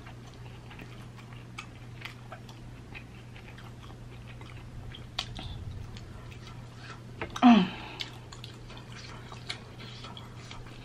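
A person chewing scallops close to the microphone, with many small wet mouth clicks. About two-thirds of the way through comes one short vocal sound that falls in pitch. A steady low hum runs underneath.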